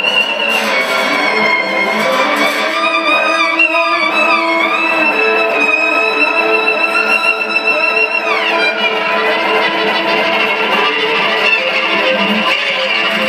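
Live violin solo over guitar accompaniment: the fiddle slides between high notes, holds a long high note, then glides steeply down about eight seconds in.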